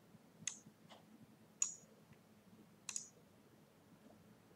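Three faint, sharp computer mouse clicks about a second apart, over quiet room hiss.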